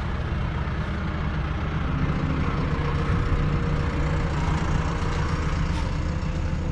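McCormick X7.621's 6.7-litre six-cylinder diesel engine running steadily.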